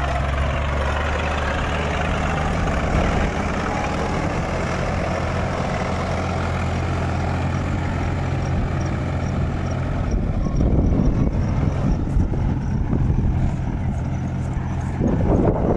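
Tractor diesel engine running steadily while towing a threshing machine over soft ground. A rough, uneven low rumble joins in about ten seconds in and again near the end.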